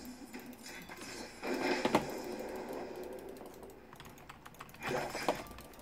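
Typing on a computer keyboard: irregular key clicks, with two busier flurries, one about a second and a half in and one near the end.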